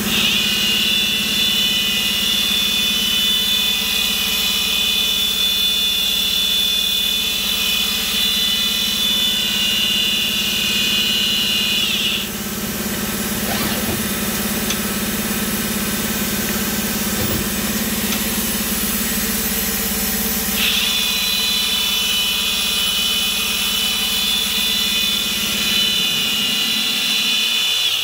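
Mori Seiki MT-1500SZ CNC turn-mill center running under power with a steady low hum and a high motor whine. The whine winds down about 12 seconds in and starts up again about 21 seconds in. The hum drops away near the end.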